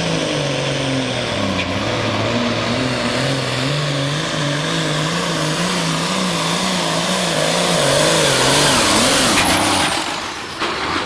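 Diesel engine of a Case Agri King hot stock pulling tractor running hard under load on the sled, its pitch wobbling up and down about twice a second. Near the end the engine drops off and the pitch falls, with a high whistle falling away.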